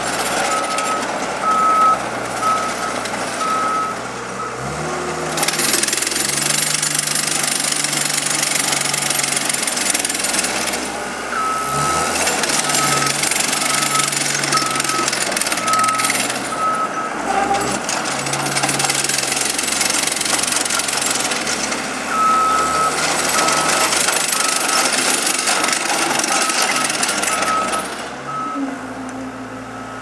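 Cat 287B compact track loader's diesel engine running as the machine drives back and forth, with its backup alarm beeping in three stretches while it reverses. Between the stretches of beeping a loud hiss from the machine dominates.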